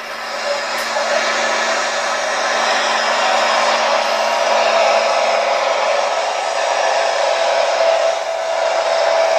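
Pulling tractor's engine running flat out as it hauls the weight sled, heard as a harsh, steady, noisy drone with a faint whining tone held through it.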